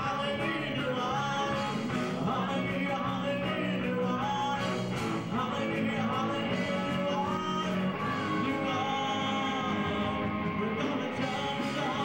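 Live worship band playing a rock-style song, with guitar and voices singing.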